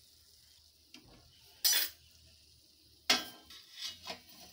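Steel slotted skimmer clinking and scraping against the kadhai and a steel plate as fried bread slices are lifted out of the ghee and set down: a short scrape about one and a half seconds in, a sharper clink about three seconds in, then a few light knocks.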